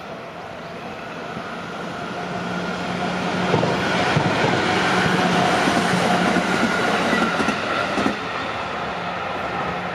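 Tokaido Line train passing over a level crossing, growing louder over the first few seconds and then running past with a steady hum and rumble, its wheels clacking sharply over rail joints several times.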